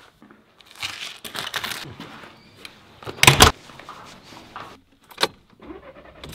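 Handling noise from getting ready to go: fabric rustling, then one loud thump a little over three seconds in and a sharp click about five seconds in.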